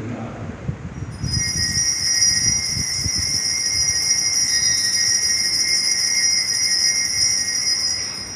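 Altar bells ringing continuously at the elevation of the chalice during the consecration: a steady high ringing that starts about a second in and stops just before the end.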